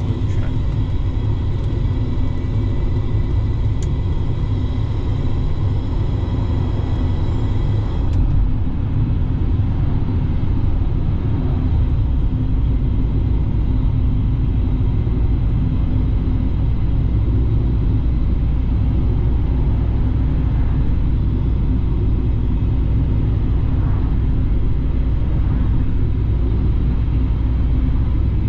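Interior noise of a car being driven, heard inside the cabin: engine and road noise make a steady low rumble.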